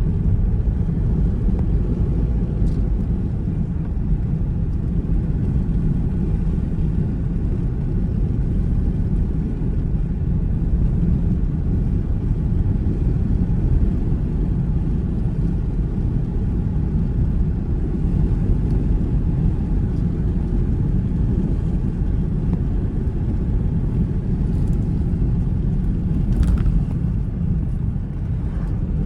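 A car driving along at steady speed: an even low rumble of tyres on the road and the engine, with no change in pace.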